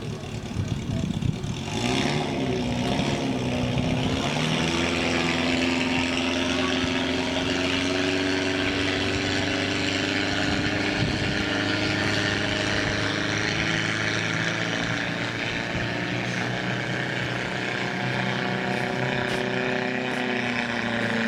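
Speedboat engine running at speed. It revs up with a rising pitch about two to four seconds in, then holds steady under a rushing hiss.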